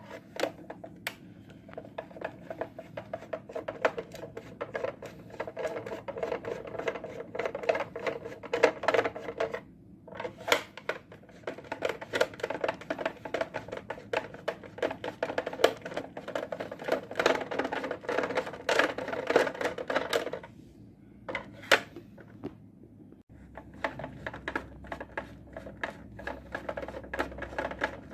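Screws being backed out of a UPS's metal cover with a screwdriver: long runs of rapid clicking and rattling, with a couple of short pauses between screws.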